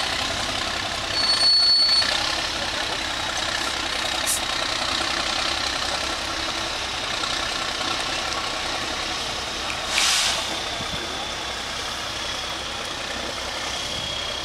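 Distant diesel engine of a six-wheeled trial truck working as it crawls over a steep dirt slope. A short, high, whistle-like tone sounds about a second and a half in, and a brief hiss about ten seconds in.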